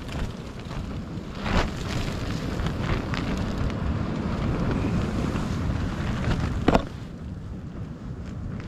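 Strong wind buffeting a tent, the fabric flapping with a couple of sharp snaps, over a steady rumble of wind on the microphone.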